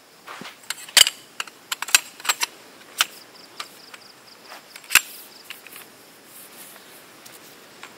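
A string of sharp clicks and knocks from camping gear being handled, the loudest about one, two, three and five seconds in. From about three seconds in, an insect chirps behind them in a fast, even pulse.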